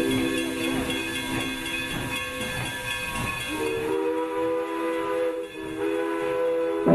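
Steam locomotive chime whistle sounding a held chord over steam hiss. It breaks off about three seconds in, then sounds a second long blast.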